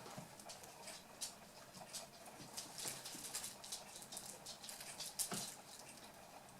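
Eight-week-old toy poodle puppies playing: irregular light patter and scuffling, many small quick taps, with one sharper knock about five seconds in.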